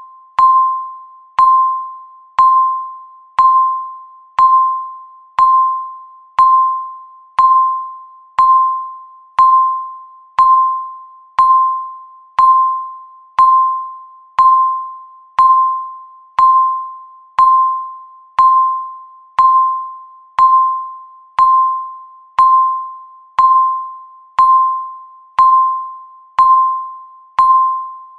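Countdown timer sound effect: a single chime tone struck once a second, each starting sharply and fading away before the next, marking off the seconds.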